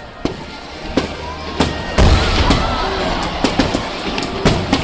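Stadium fireworks display: a quick run of sharp bangs and crackles, with a big loud burst about two seconds in and a rapid cluster of bangs near the end. Music plays underneath.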